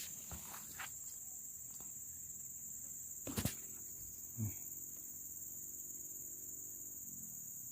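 Steady high-pitched chirring of insects, with a single sharp click about three and a half seconds in and a brief low sound about a second later.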